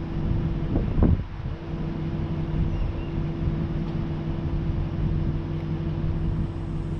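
Vehicle engine idling steadily with a low rumble and a steady hum. A brief, louder sound breaks in about a second in.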